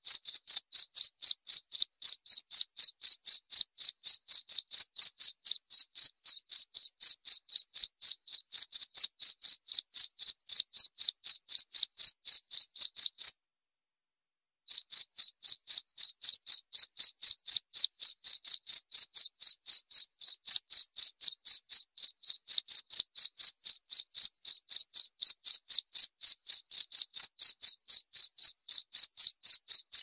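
Cricket chirping: a steady run of evenly spaced, high-pitched chirps, about three a second. The chirping stops for about a second and a half around the middle, then resumes at the same rate.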